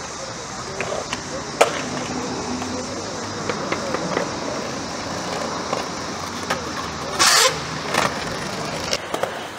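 Skateboard wheels rolling over concrete, with a sharp clack about one and a half seconds in. A loud, short clatter of the board comes about seven seconds in, followed by a knock about a second later.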